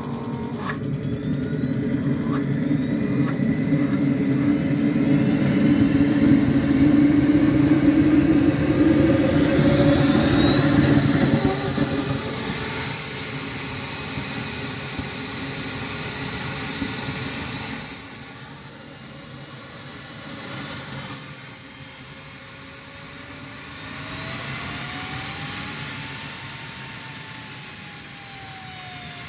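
JetCat model jet turbine starting up: a loud low rumble as it lights, with a sharp click about a second in. Its whine then climbs steeply as it spools up and settles into a high steady whine. The whine dips briefly and rises and falls again near the end as the rpm changes.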